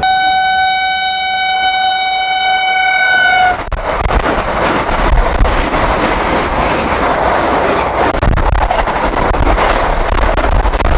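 Vande Bharat Express (Train 18) electric trainset sounding one long steady horn blast that cuts off suddenly about three and a half seconds in, followed by the rumble and rush of its coaches passing at speed.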